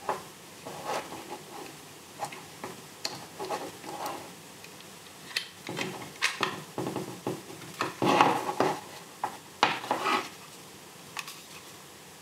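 Irregular plastic clicks, scrapes and rattles of a small plastic sensor housing being handled and pressed shut around a circuit board, busiest about eight seconds in.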